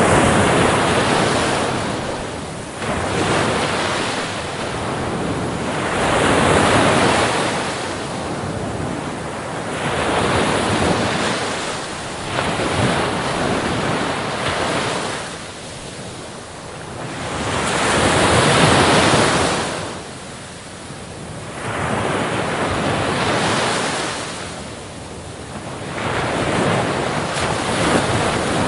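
Ocean surf breaking and washing in, the rush of the waves swelling and fading every three to five seconds.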